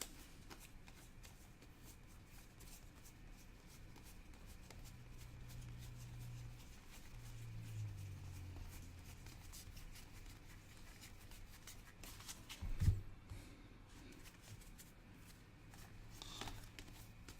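Trading cards being flipped through by hand: a steady run of soft flicks and slides, with one louder thump about two-thirds of the way through.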